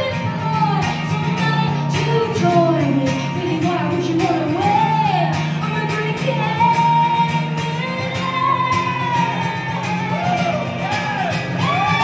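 A solo woman singing live while strumming an acoustic guitar, her voice sliding and wavering on held notes over the steady strummed chords.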